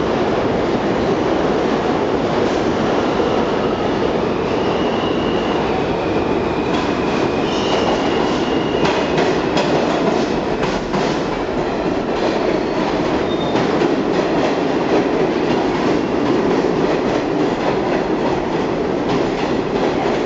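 A New York City Subway A train pulling into an underground station: steady rumble of the train, with squealing wheels about four to eight seconds in and a run of clattering clicks over the rail joints as the cars come alongside and pass.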